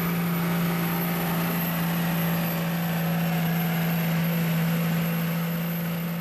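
Diesel pickup engine, a Dodge Ram's Cummins inline-six, running hard at a steady, unchanging pitch while dragging a weight-transfer pulling sled through dirt.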